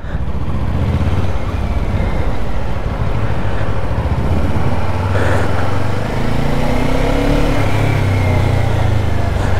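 Motorcycle engine running as the bike rides off, under a steady rushing noise; the engine note rises briefly about seven seconds in.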